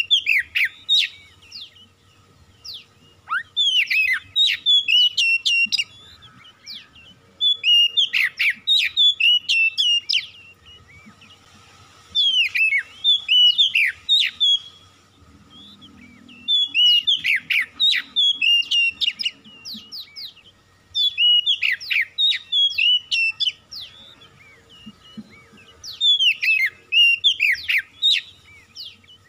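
Oriental magpie-robin (kacer) singing in repeated bursts of fast, sliding whistled notes. About seven phrases, each a second or two long, come with short pauses between them.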